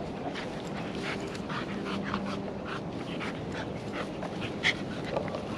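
Two dogs play-fighting, a Staffordshire Bull Terrier and a larger tan dog, making many short, irregular breathing and vocal noises. One sharper, louder sound comes near the end.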